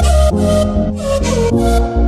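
Background music with a steady beat and a held melody.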